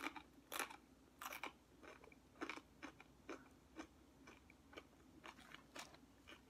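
A person chewing food close to the microphone: soft, moist crunches and mouth clicks, about two a second.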